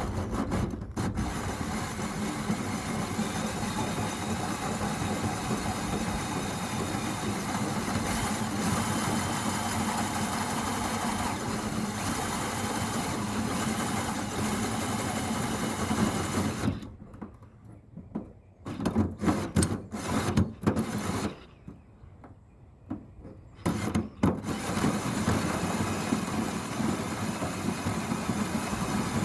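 Cordless drill running steadily under load as it cuts a hole. A little past the middle it stops and starts in short bursts for several seconds, then runs steadily again.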